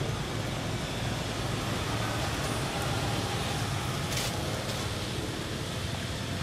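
Steady low outdoor background rumble, with a brief faint click about four seconds in.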